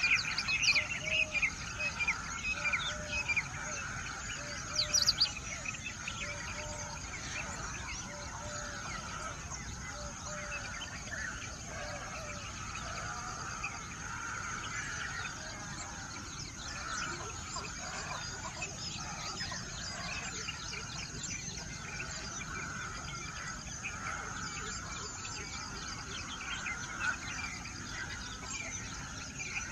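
A flock of birds chattering and chirping without pause, many short overlapping calls. Several louder, sharper calls and a run of short repeated low notes come in the first few seconds.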